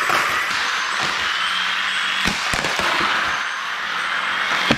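Home-built combat robot hitting an RC truck: a steady whirr from the robot's spinning weapon, with sharp clattering impacts a little over two seconds in, again just after, and near the end.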